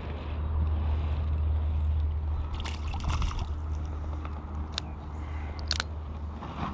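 Creek water sloshing and trickling under a steady low rumble, with a few sharp clicks in the middle.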